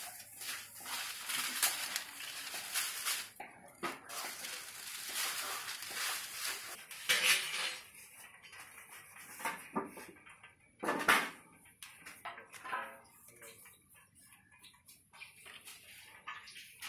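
A hand rubs ghee over a flat metal tray with a continuous swishing scrape. About seven seconds in, chopped pistachio pieces are dropped and scattered onto the tray with irregular light taps and a few louder knocks against the metal.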